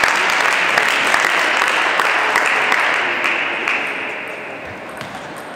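Audience applauding in a hall, dense clapping that fades away over the last couple of seconds.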